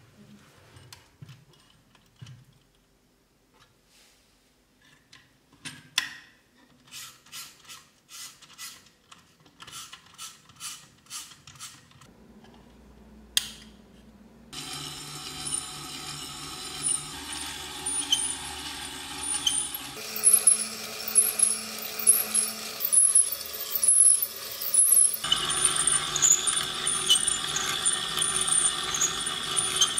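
Clicks and taps of hands handling an all-metal RC vintage car model, then a sharp switch click about 13 seconds in. After that the model's electric drive runs steadily through its gears and toothed belt, with rapid high ticking. The running sound shifts about 20 seconds in and gets louder about 25 seconds in.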